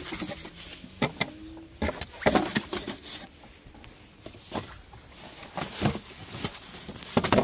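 Irregular knocks, clicks and rustles of hand work on fittings, a few taps at a time.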